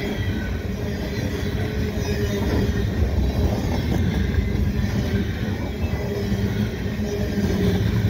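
Covered grain hopper cars of a freight train rolling past, a steady noise of steel wheels on rail.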